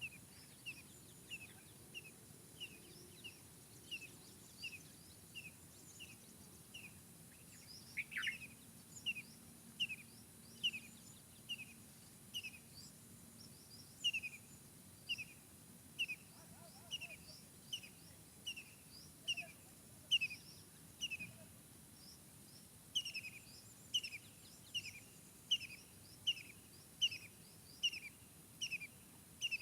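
A songbird repeating one short, downward-slurred chirp over and over, about three every two seconds, with one louder, longer falling note about a quarter of the way in. Fainter, higher chirps of other birds sound behind it over a soft steady hiss.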